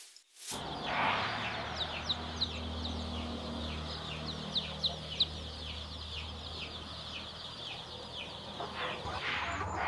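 A crowded brood of hybrid layer chicks peeping: many short, falling cheeps overlapping several times a second, over a steady low hum.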